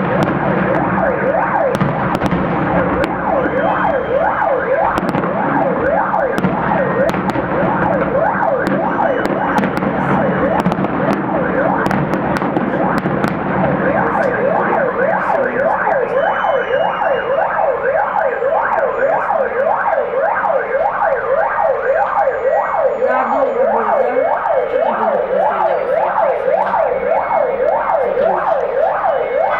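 Several electronic sirens wailing in a fast up-and-down warble, overlapping. Sharp fireworks pops and crackles are scattered through the first half.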